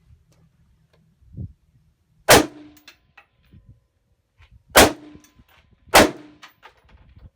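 Three rifle shots from an AR-15, the second about two and a half seconds after the first and the third a second later, each followed by a brief ring.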